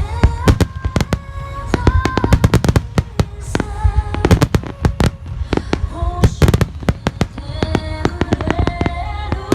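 Fireworks of the Nagaoka Phoenix display bursting in rapid, dense succession: many sharp cracks and booms over a continuous low rumble, with music playing underneath.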